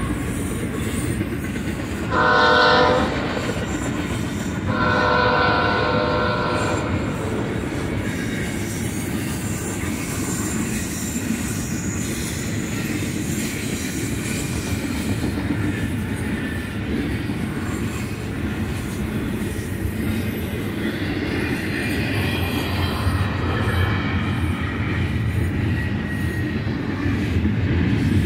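BNSF double-stack container train rolling past with a steady rumble and clatter of steel wheels on rail. The departing lead locomotive's air horn sounds twice, a short blast about two seconds in and a longer one about five seconds in. The rumble grows louder near the end.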